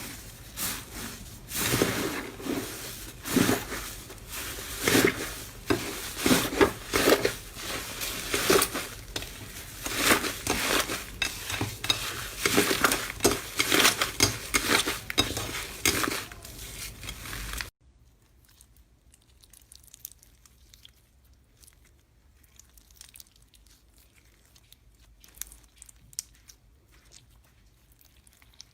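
Slime being squished and stretched, a dense run of sticky crackles and pops. About 18 seconds in it cuts suddenly to a much quieter stretch of faint crackling.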